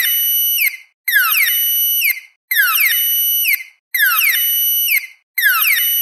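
Synthetic security-alarm sound effect: a high-pitched electronic tone that swoops down, holds, then drops away, repeating about every second and a half with a short gap between each.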